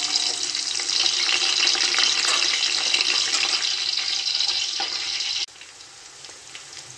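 Sliced onions frying in hot oil with whole spices in a steel pot, a loud steady sizzle as they are fried until brown. About five and a half seconds in the sizzle drops suddenly to a much quieter level.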